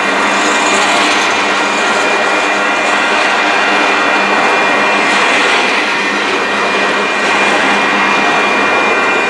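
A long train of empty intermodal flatcars rolling past at close range: steel wheels running on the rails make a steady, loud noise. A thin high ringing tone sits over it throughout.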